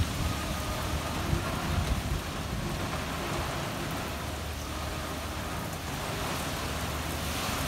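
Steady rain in a storm: an even hiss of rain falling on surfaces, with a low rumbling underneath that comes and goes.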